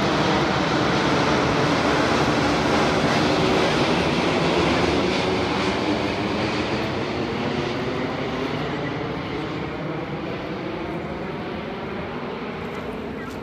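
Boeing 787-9 airliner on final approach with its gear down, its twin turbofan engines passing low overhead in a wide jet rush. The sound is loudest for the first few seconds, then fades steadily and grows duller as the plane moves away.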